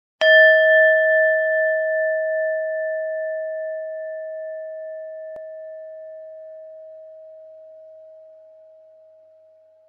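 A singing bowl struck once and left to ring, its clear tone wavering slowly in loudness as it fades out over about nine seconds.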